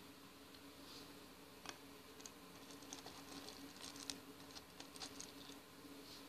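Faint, scattered light clicks and ticks of small plastic hama beads being handled, a few at a time, between about two and five and a half seconds in.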